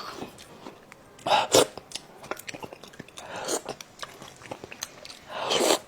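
Close-up eating sounds of a person chewing and biting into sauce-braised monkfish. There are many small wet mouth clicks, and three louder breathy, slurping bursts about two seconds apart.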